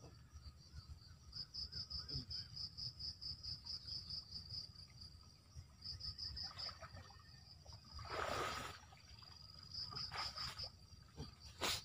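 An insect chirping in short runs of quick high-pitched pulses, about six or seven a second, over a low steady rumble. About eight seconds in comes a brief splash of water as someone wades in the stream, and a sharper splash or knock near the end.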